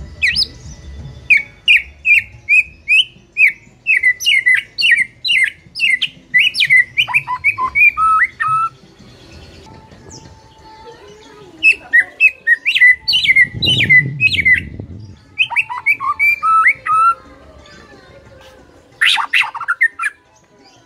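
White-rumped shama singing: fast runs of short, sharp whistled notes in two long phrases with a pause between them, then a couple of harsh, buzzy calls near the end. A low rumble sits under the middle of the second phrase.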